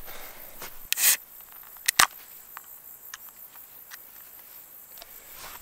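A brief rasping scrape about a second in, then two sharp clicks in quick succession, the second loud, followed by a few faint ticks, over a faint steady high-pitched background.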